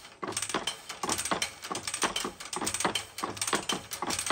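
Cook's hand-operated dual tooth setter clicking and clacking steadily, a few sharp metal clicks a second, as a Woodmizer LT15 bandsaw mill blade is worked through it tooth by tooth and its teeth are set.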